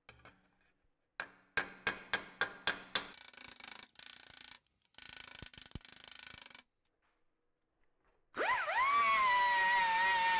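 Hammer blows on a welded sheet-steel chain guard held over a post stake: about seven sharp strikes a second apart, then two spells of quicker, lighter hammering, stretching the weld seams to straighten the part. Near the end a small die grinder with a sanding disc spins up with a quickly rising whine and runs steadily, dressing the welds. The grinder is the loudest sound.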